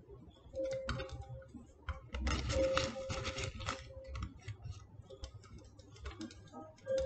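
A small plastic bag crinkling in the hand as dried herbs are pinched out and crumbled between the fingers into a ceramic bowl: a run of small crackles and clicks, densest a couple of seconds in.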